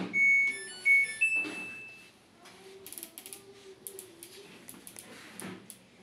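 Samsung Eco Bubble washer dryer's control panel playing its short power-on tune, a few electronic beeps ending on a higher held note, in the first two seconds. Faint clicks and taps follow.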